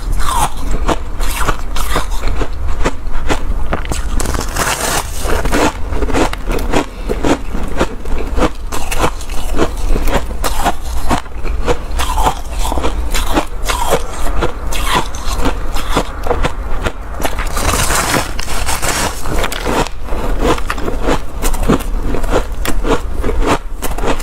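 Close-miked crunching of hard shaved ice and crushed hard ice being bitten and chewed: a dense, continuous run of crisp, squeaky crunches.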